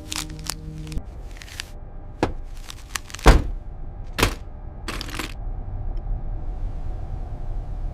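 A string of sharp clicks and knocks, the loudest a little past three seconds in, over a low hum. Background music stops about a second in.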